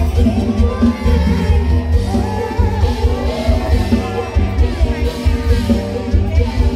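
Loud live stage-show music over a loudspeaker system, with a heavy, pulsing bass beat and a voice singing over it.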